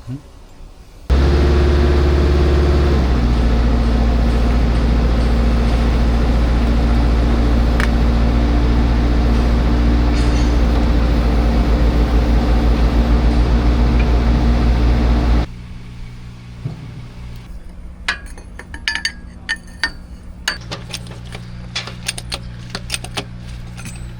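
A loud, steady machine runs with a low engine-like hum, starting suddenly about a second in and stopping suddenly about fifteen seconds in. After that, metal parts clink and tap repeatedly over a quieter steady hum.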